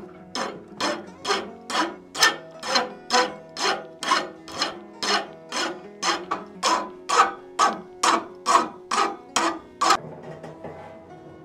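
Hand file rasping across a forged steel pipe tomahawk head clamped in a leg vise, shaping and cleaning it up after forging. Even strokes at about two a second, stopping near the end.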